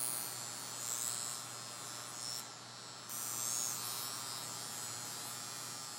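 Violet wand running on its high setting: a steady electrical hum under a thin, high buzzing hiss, which cuts out briefly about two and a half seconds in.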